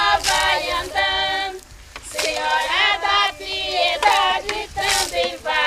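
A group of women singing an incelência de chuva, a traditional sung prayer for rain, with no instruments. Water is splashed from pans and buckets, heard as a couple of brief splashes.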